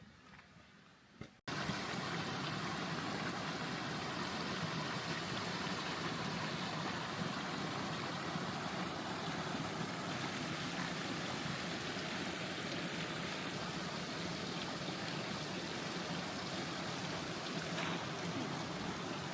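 Steady rushing of a mountain creek, cutting in abruptly about a second and a half in after a near-quiet moment.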